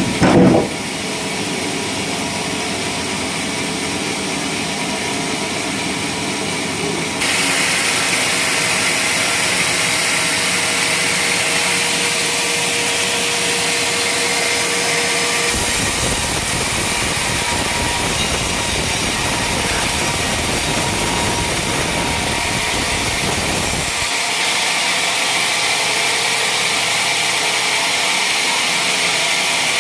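Motorised sawmill machine running and sawing a teak beam: a steady mechanical noise that changes abruptly several times, about 7, 15 and 24 seconds in. A brief loud thump comes right at the start.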